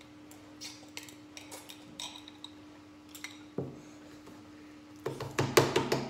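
Chopsticks and a fork clinking and tapping lightly against glass bowls while noodle soup is eaten, over a faint steady hum. Near the end comes a louder, rapid run of slurping as noodles are sucked in.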